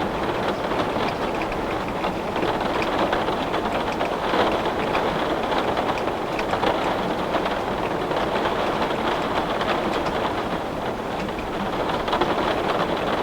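Heavy rain pelting a window pane: a steady, dense hiss of drops with fine scattered ticks of individual drops striking the glass.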